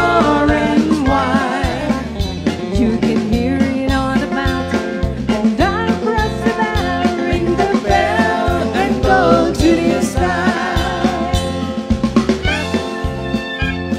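Live band music: electric bass and drum kit keeping a steady beat, with a singer's voice over them. Long held melodic notes come in near the end.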